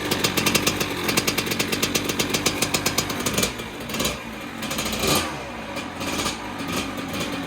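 Kawasaki KX100 two-stroke single-cylinder dirt bike engine running hard with a fast, even buzz, then revving up and down in surges through the second half.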